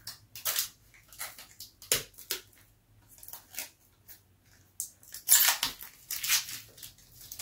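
Plastic protective film being peeled off and crinkled by hand: a run of irregular crackles and rustles, loudest about five to six seconds in.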